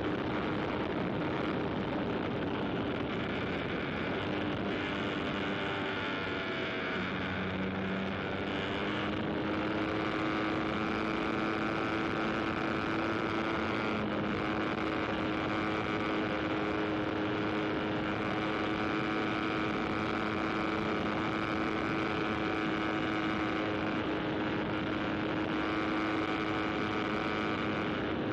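Aircraft engine running steadily in flight, its pitch shifting about a quarter of the way through and then holding steady.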